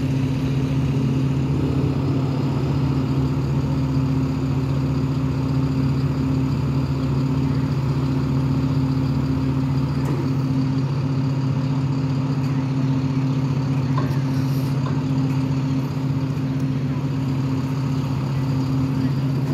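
Idling engine, a steady low hum that holds one even pitch.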